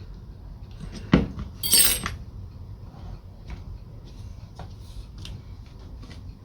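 Metal lathe parts being handled: a knock about a second in, then a short bright metallic clink and rattle, followed by a few light ticks.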